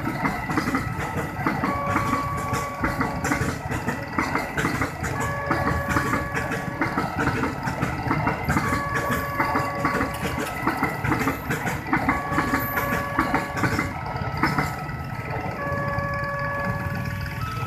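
A level-crossing warning siren plays a repeating electronic tune of alternating steady tones, over the rhythmic clatter of a freight train's flat wagons rolling across the crossing. The wheel clatter dies away about three-quarters of the way through while the siren keeps going.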